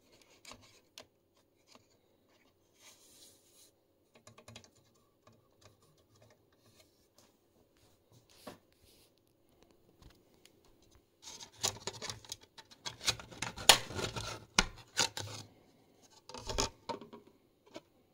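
Faint scattered clicks of handling, then about halfway through several seconds of scraping and clattering as a dusty cover plate is worked loose and lifted off an old switch-mode power supply, with a shorter rattle near the end.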